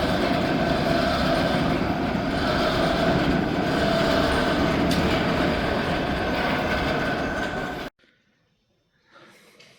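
Steady, loud machine noise with a constant whine running through it, which cuts off abruptly about eight seconds in and leaves near silence.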